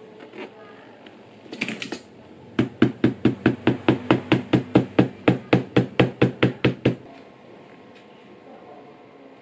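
Rapid series of sharp taps from a hand tool working a layered leather wallet piece, about twenty evenly spaced taps at roughly five a second, stopping suddenly. A short scuffing rustle comes just before the taps begin.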